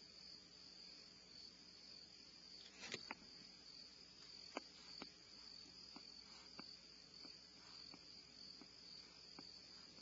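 Faint, steady, high-pitched insect chorus, an unbroken trill. About three seconds in a sharp double tick cuts through it, followed by a string of faint sharp clicks roughly every half second.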